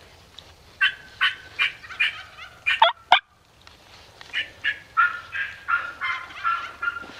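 Turkey calling: a run of sharp, evenly spaced yelping notes starting about a second in, ending in two loud falling notes. The sound cuts out briefly, then a faster, longer run of calls follows from about four seconds in.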